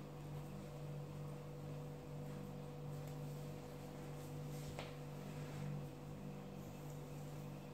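Steady low electrical hum of room tone, with a single faint click about five seconds in.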